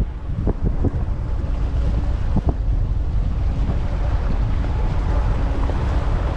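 Heavy wind buffeting the microphone aboard a Buster Magnum aluminium motorboat running through choppy waves, with the outboard's steady hum underneath. A few short knocks, about half a second and two and a half seconds in, as the hull meets the waves.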